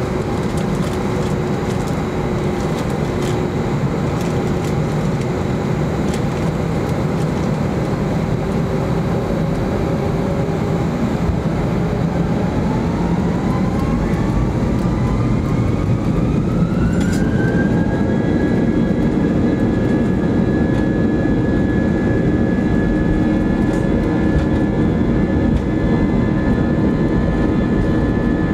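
Airbus A320 jet engines heard from inside the cabin, a steady low rumble that turns into a rising whine about twelve seconds in as the engines spool up for takeoff. The whine then holds at a steady high pitch under the rumble.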